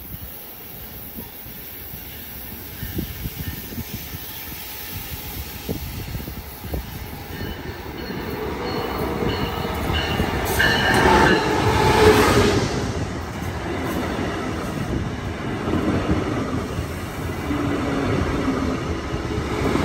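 Brightline passenger train approaching and passing close by: the Siemens Charger diesel locomotive comes past, loudest about twelve seconds in, then the coaches roll by.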